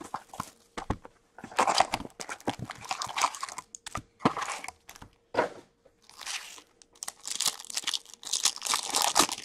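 Plastic shrink wrap crinkling and tearing as it is ripped off a cardboard card box, then a foil card pack being torn open near the end, in a series of short crackly bursts and clicks.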